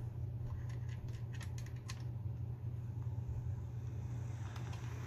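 Bachmann 2-8-0 model steam locomotive running on track: a steady low motor hum, with a cluster of light clicks from about half a second to two seconds in. It runs smoothly.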